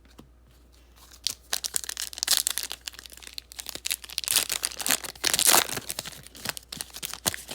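Trading card pack wrapper being torn open and crinkled in the hands, a dense crackling that starts about a second in and swells twice.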